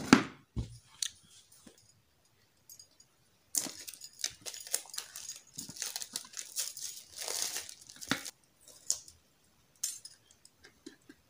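Clear plastic wrap being torn and peeled off a smartphone box, crinkling in a run of bursts that starts a few seconds in and lasts about five seconds.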